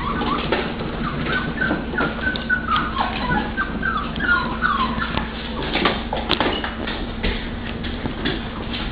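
Pit bull puppies whimpering and yipping in quick, short, high-pitched calls, mostly in the first half, with scattered light clicks and taps over a steady low hum.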